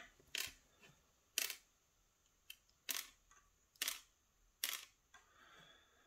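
Faint, sharp clicks and taps from a brass lock plug being handled and set down on a plastic pin tray, about five of them spaced roughly a second apart.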